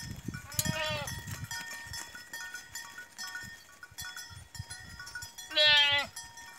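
Goats bleating twice as they walk out of their pen: a shorter bleat about half a second in and a louder, longer one near the end.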